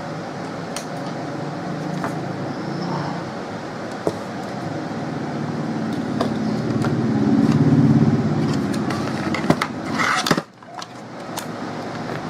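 Low engine hum of a passing vehicle, swelling to its loudest about seven to eight seconds in and then fading, with a few light clicks. The sound drops away sharply about ten seconds in.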